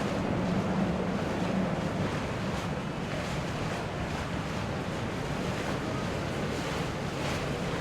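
Steady rush of water and wind noise, with a low boat-engine hum underneath that is strongest in the first two seconds.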